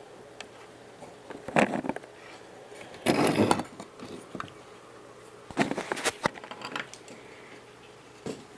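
Clicks and clatter of small hard objects being handled, in several short bursts, with the loudest clatter about three seconds in.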